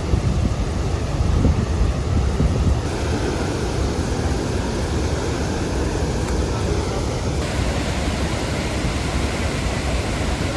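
Steady roar of Niagara Falls close up, with wind and spray buffeting the microphone. The sound shifts abruptly about three seconds in and again near the end.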